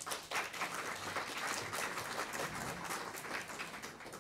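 Audience applauding, a dense patter of many hands clapping that begins to thin out near the end.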